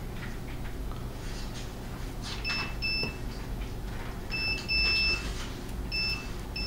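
Electronic beeper on a granule packing machine's control panel, sounding six short beeps in three pairs, the second beep of the middle pair held longer, over a steady low machine hum and a light rattle of grain.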